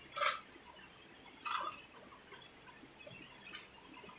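Flat-head screwdriver scraping and clicking against a metal retaining ring as it is pried loose: three short scrapes, the first the loudest and the last faint.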